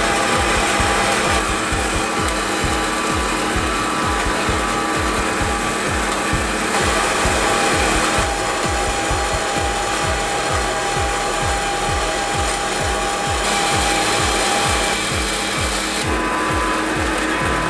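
Small metal-cutting bandsaw with a 24 TPI blade, run upright, cutting a knife-blade profile out of flat steel stock: the motor and blade run steadily while the teeth rasp through the metal.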